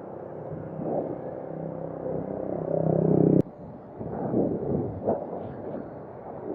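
Road traffic: a motor vehicle's engine drone swells louder, then cuts off abruptly with a click about halfway through, followed by irregular low rumbling.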